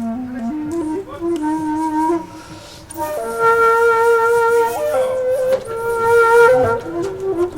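Background music: a flute-like wind instrument playing a slow melody of long held notes that step from pitch to pitch.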